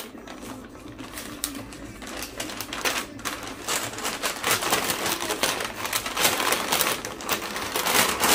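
A McDonald's paper takeaway bag rustling and crinkling as it is handled and opened, in many quick crackles that grow louder in the second half.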